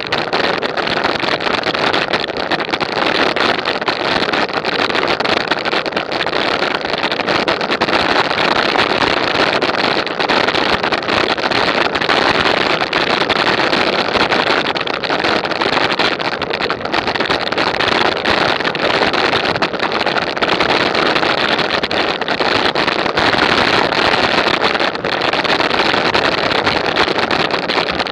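Steady rush of wind over an action camera's microphone at riding speed.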